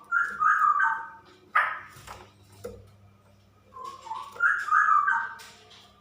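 Female straw-headed bulbul singing: two short bubbling phrases of loud whistled notes, the first at the start and the second about four seconds in, with a single sharp note between them.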